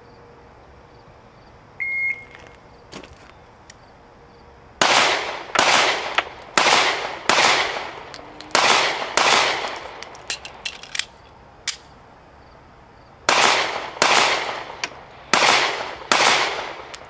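Smith & Wesson M&P Shield 9mm pistol fired in a rapid string: a short beep about two seconds in, then about six shots half a second to a second apart, a pause of about three seconds for a magazine reload with small clicks, and about four more shots.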